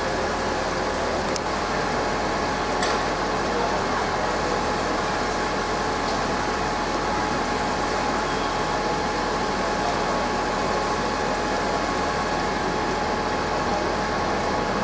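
Fire engines' engines idling in a steady, unbroken drone, with a few held tones running through it.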